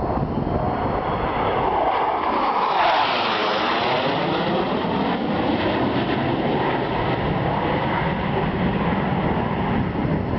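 F-16 fighter jet flying past low and loud, its roar taking on a sweeping, phasing sound as it passes about three seconds in, then rumbling on as it moves away.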